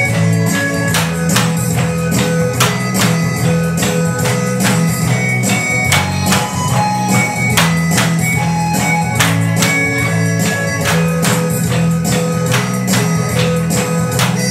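Music with a melody and steady bass, over a regular rhythm of sharp clacks from bamboo poles being struck together and against the floor for a bamboo dance.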